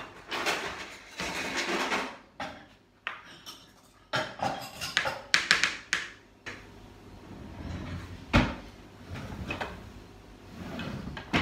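Orange half scraped and twisted on a plastic hand citrus juicer, then plastic juicer parts and cups clattering and knocking on the counter, with one sharp knock about eight seconds in.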